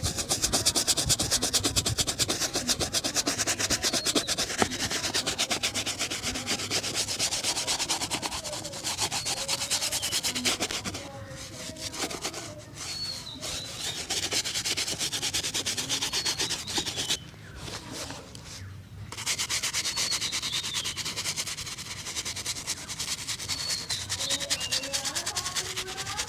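Shoe being buffed during a shoe shine, with rapid back-and-forth rubbing strokes. The strokes pause briefly, once at about eleven seconds and again for about two seconds around seventeen seconds in.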